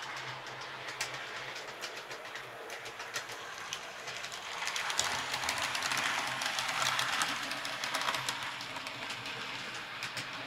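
H0-scale model trains running on the layout: a steady whir with many light clicks of wheels over the track. It grows louder for a few seconds around the middle as a model passenger train passes close by.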